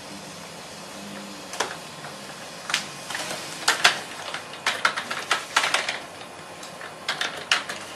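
Someone typing on a computer keyboard: irregular clicks and taps, some in quick runs, starting about a second and a half in and stopping just before the end, over a faint steady room hum.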